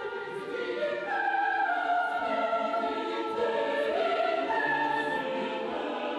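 Classical choral music: a choir singing long held notes that swell about a second in.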